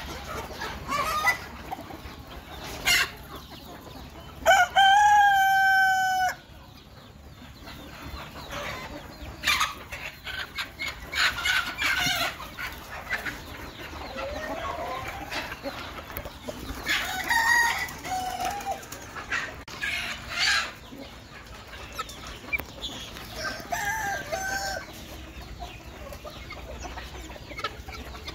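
Free-range chickens clucking and calling as they feed, with a rooster crowing once, loudly, about four and a half seconds in, a long call of nearly two seconds. Short clucks and calls carry on at intervals through the rest.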